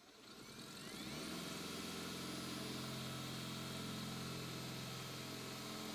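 Power drill running in reverse with a Speed Out extractor bit, boring into the head of a stripped screw. The motor spins up over about a second with a rising whine, then runs at a steady speed.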